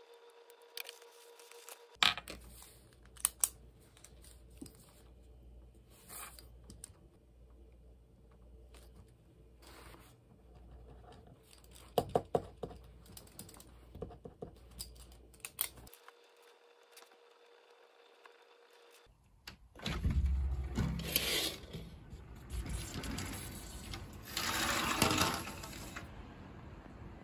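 Pen writing on a paper form, with light scratching and scattered clicks and taps. About twenty seconds in, a louder stretch of rushing noise lasts several seconds.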